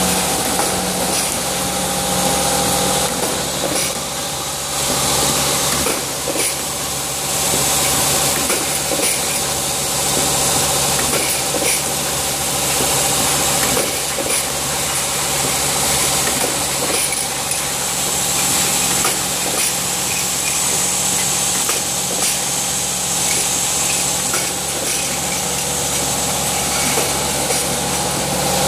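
Automatic cap-assembly machine running: a steady mechanical hum with a constant high hiss and fast, irregular clicking and clattering from its pneumatic cylinders and rotary indexing table as the caps are assembled.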